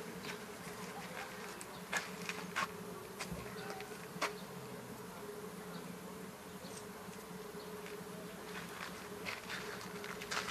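A steady buzzing hum at an unchanging pitch, with a few light clicks about two and four seconds in as hands work yarn along a wooden Tunisian crochet hook.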